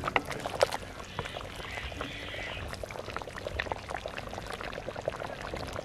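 A ladle stirring and lifting hot meat broth in an earthenware cooking pot: liquid sloshing and pouring off the ladle, with scattered small pops and clicks.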